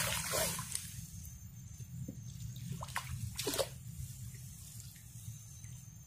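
Shallow ditch water splashing and dripping in a few short bursts as a fish trap is set back in the water, with a sharp knock at the very start.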